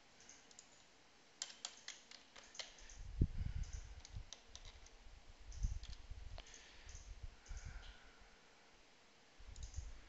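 Typing on a computer keyboard: short runs of key clicks with pauses between them, along with a few dull low thumps, the loudest about three seconds in.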